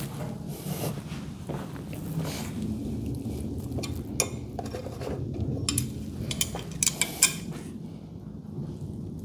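Metal tools and garage door hinge hardware clinking and clicking as they are handled, with a quick run of sharp clicks a little past the middle, over a steady low background noise.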